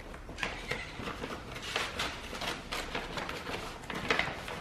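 Brown kraft wrapping paper being torn and pulled off a cardboard gift box: a run of crackling rips and paper rustling, with a few sharper tears about a second in and near the end.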